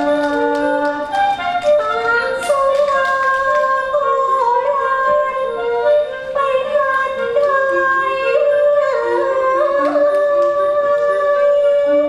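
Thai classical music accompanying a Khon dance-drama: an ornamented melody of long, bending notes over several parallel lines, with a few light percussion strikes.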